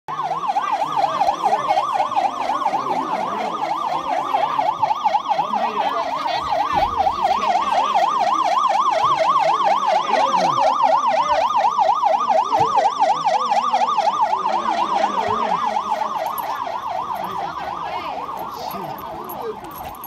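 Building fire alarm sounding a fast warbling siren tone that wavers up and down several times a second, set off by someone pulling the manual fire alarm. It grows fainter over the last few seconds.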